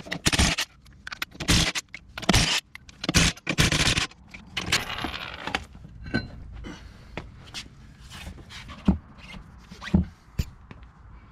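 Milwaukee FUEL cordless impact wrench hammering the lug nuts loose in a string of short bursts, then spinning a nut off with a thin whine. This is followed by a few knocks and clunks as the wheel is pulled off and laid on the floor.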